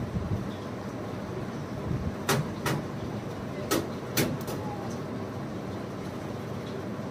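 A handful of sharp, short clicks, five in quick succession between about two and four and a half seconds in, over a steady low rumble.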